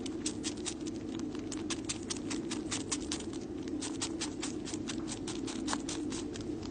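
Tabby kitten making rapid clicking mouth sounds, about five a second, over a steady low hum.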